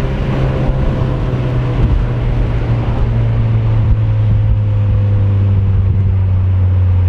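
Mazda MX-5's four-cylinder engine running steadily on the move, its drone sinking slowly in pitch.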